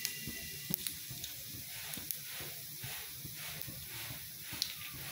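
Cumin seeds spluttering in hot mustard oil in a kadhai: a steady sizzle with a few scattered small pops, the tempering stage where the seeds are left to crackle.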